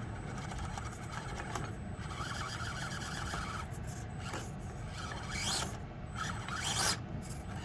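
Axial SCX24 mini RC crawler running: a small electric motor hums while its tyres and chassis scrape and grind over rock and pea gravel, with a few louder scrapes in the second half.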